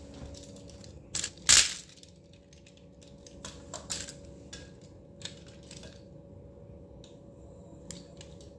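Sharp plastic clicks and knocks from a toy hydraulic cyborg hand's fingers and joints as it closes around a stainless tumbler, the loudest about a second and a half in, with fainter scattered clicks after.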